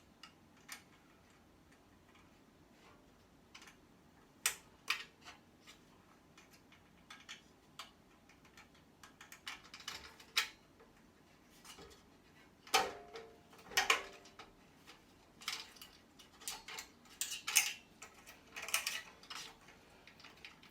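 Scattered clicks and clinks of a screwdriver and small metal and plastic parts being worked while unscrewing and taking apart an electronic device. The clicks are sparse at first and come more often later, with two louder metallic clinks about two-thirds of the way through that ring briefly.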